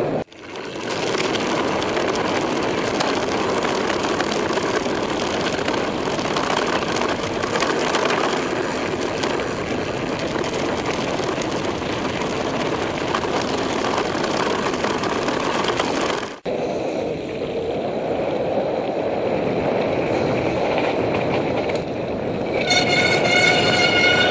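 Helmet-camera mountain-bike ride on a rough gravel trail: continuous tyre crunch, bike rattle and wind noise with many small knocks. It cuts off abruptly about two-thirds of the way through and gives way to a calmer rolling noise. Near the end a steady high squeal sets in, the brakes squealing on a downhill gravel track.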